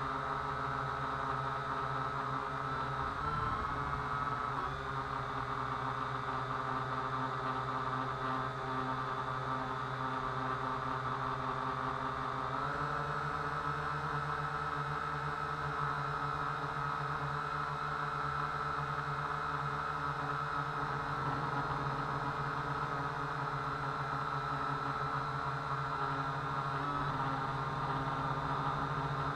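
Syma X8W quadcopter's four brushed motors and propellers whirring steadily, heard through the SJ4000 camera fixed directly to its frame. The pitch steps up a little shortly before halfway.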